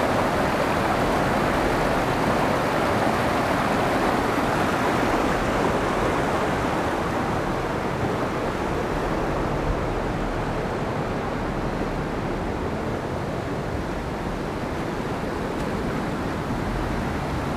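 Lousios River rushing over rocks in fast rapids: a steady hiss of white water that eases slightly about halfway through.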